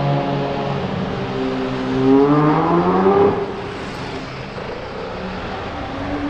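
Supercar engine revving: a steady engine note, then a pitch that climbs for about two seconds under acceleration and drops off suddenly a little past three seconds in, with a quieter engine sound after.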